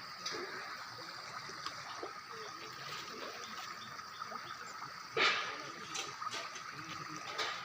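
Steady rush of waterfall water, with a brief louder burst of noise about five seconds in and a smaller one near the end.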